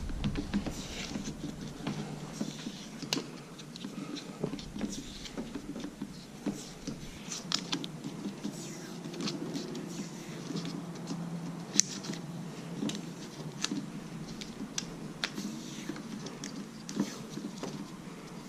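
Tape being pulled off the roll and wrapped round a blower's throttle cable and wire loom: many small irregular crackles, scratches and clicks of handling, over a low steady hum.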